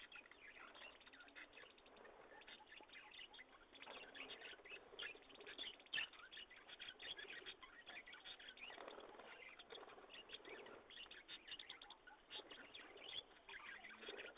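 Faint, rapid twittering of small birds: a dense run of short chirps, with soft rustling underneath and one sharper click about six seconds in.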